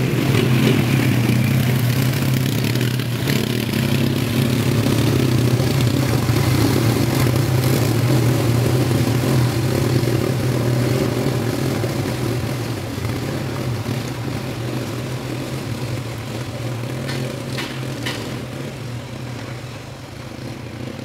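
Quad bike (ATV) engines running as the machines drive up a shallow river. The engine sound is steady at first and fades gradually over the second half as they move away.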